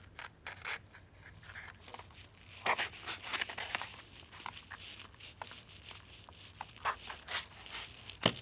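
Scissor points punching holes through the bottoms of painted cardboard egg-carton cups: a run of short crunching, crinkling scrapes, with one sharp click near the end.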